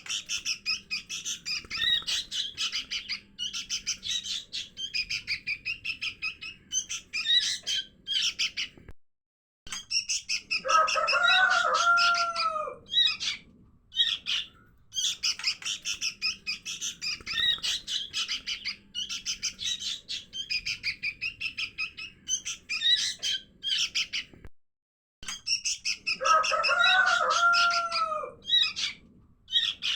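Young sooty-headed bulbuls (kutilang) begging: a fast run of high chirps, with a lower curving whistled call about 11 seconds in and again near the end. The sequence repeats as a loop, a lure recording meant to draw bulbuls in.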